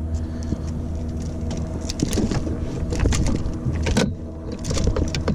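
Boat's motor running steadily with a low hum, with a few sharp knocks and clatters on the boat about two, three and four seconds in.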